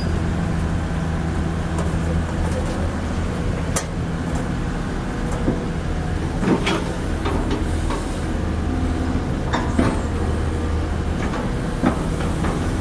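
Excavator engine running steadily, with scattered metallic clanks and knocks from the machine at work.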